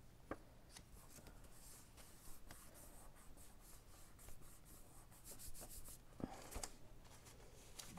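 Faint rustling and rubbing of paper as hands handle and press a paper panel onto a paper envelope, with scattered light taps that come thicker near the end.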